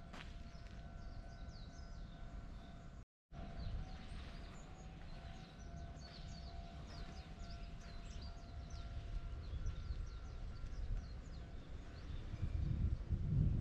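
Small birds chirping on and off over outdoor ambience, with a steady tone humming in the background for most of the time, stopping about two-thirds through. Near the end a low rumble swells up.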